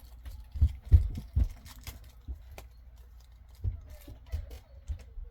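Handling noise of collectible pins being sorted by hand: small clicks and light knocks, with several low thumps in the first second and a half and a few more scattered later.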